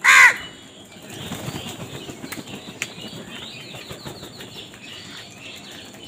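House crows at a food patch: one loud, harsh caw right at the start, then wings flapping as birds flit in and out, with fainter short calls in the background.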